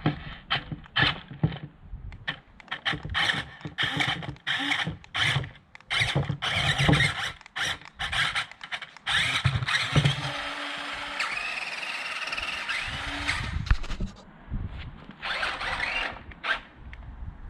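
JJRC Q137 8x8 skid-steer RC vehicle's electric drive motors and gearboxes whining in many short blips of throttle. A steadier run of a few seconds comes past the middle, its pitch bending up and down, and then more short blips near the end.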